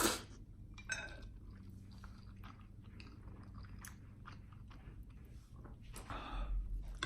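Close-miked chewing: many small, irregular wet mouth clicks of someone eating, with a brief louder noisy sound about six seconds in.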